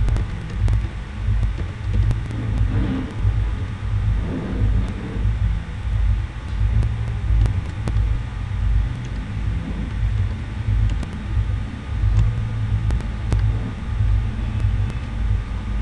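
A loud, wavering low rumble of background noise, with faint scattered keyboard clicks from code being typed.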